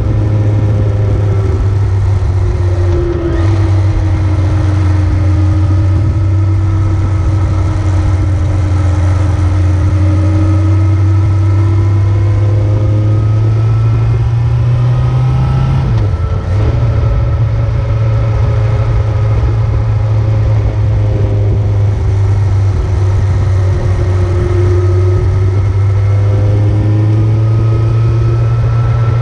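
A motor vehicle's engine running while under way, its note slowly rising and falling, with a heavy steady low rumble beneath. The note breaks off briefly twice, about three seconds in and again just past the middle.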